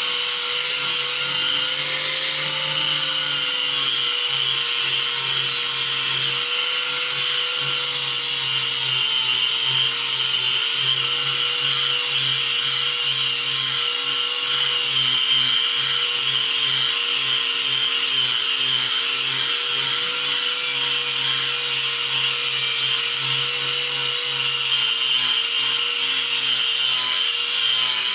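Electric power sander running steadily against stained wood, sanding the finish off: a steady motor whine with a rough abrasive hiss. The pitch dips slightly a few seconds in.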